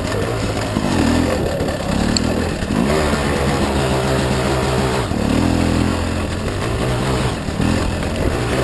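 Gas Gas dirt bike engine running on the trail, its note rising and falling as the throttle is opened and closed, with several quick climbs in pitch.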